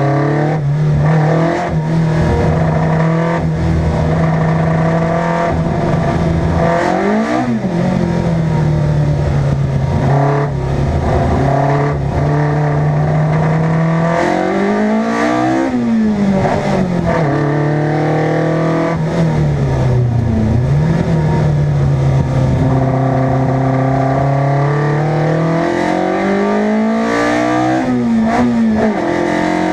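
Racing car engine running hard. Its pitch holds steady for several seconds at a time, then briefly rises and drops again, at about 7, 15, 20 and 28 seconds in.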